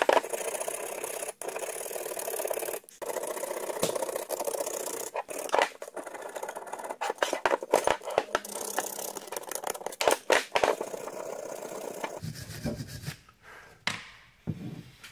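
Hand tool scraping and rasping in quick strokes inside the bearing bore of a steering knuckle, removing oxide and scale so the new front wheel bearing will seat. The scraping stops about twelve seconds in, followed by a few low knocks.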